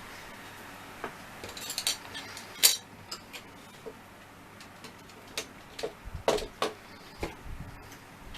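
Hard plastic parts of an Airfix Quick Build snap-together model kit being handled, set down and pressed together: scattered sharp clicks and taps, the loudest about three seconds in and a quick run of them near the end.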